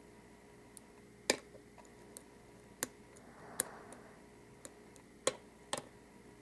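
Small metal clicks of a lock pick working the pins inside an Abus Titalium 83/40 padlock during single-pin picking. The clicks are sharp and irregular, about ten of them, the loudest about a second in and again near five seconds.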